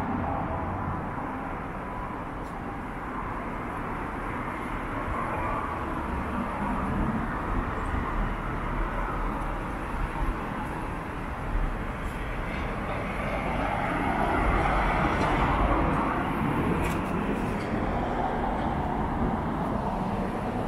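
Yamaha JOG 50cc scooter's small four-stroke single-cylinder engine idling steadily, swelling louder for a couple of seconds about two-thirds of the way through.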